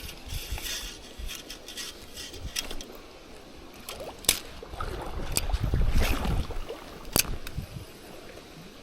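Wind rumbling on the microphone, with water sloshing and a few sharp clicks in the middle, the wind swelling louder about six seconds in.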